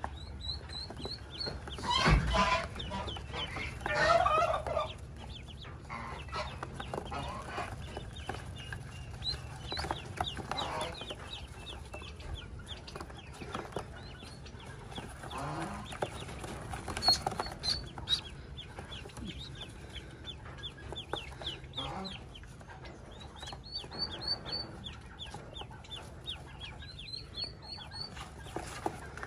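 Many newly hatched domestic ducklings peeping without pause in quick, high, falling chirps. A couple of louder, lower sounds stand out about two and four seconds in.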